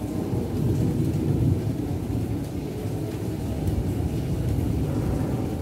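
Low rumble of distant thunder, swelling to its loudest about a second and a half in and then settling into a steady roll.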